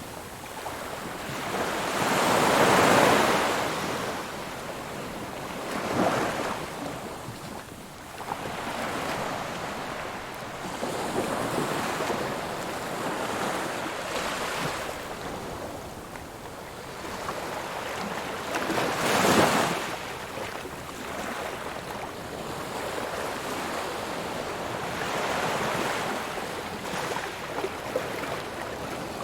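Ocean waves breaking on a shore, a steady wash of surf with several louder swells rising and falling, the strongest about three seconds in and near two-thirds of the way through.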